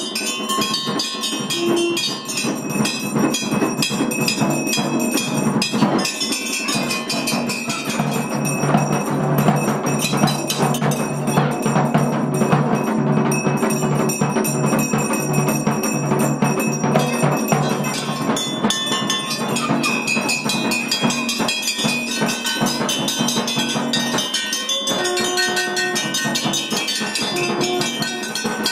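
Temple bells clanging rapidly and continuously together with drum beats, the din of bells and drumming that goes with a Hindu puja.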